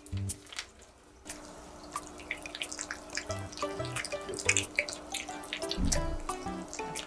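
Two cats eating wet cat food from a bowl: quick wet smacking, lapping and chewing clicks, over soft background music.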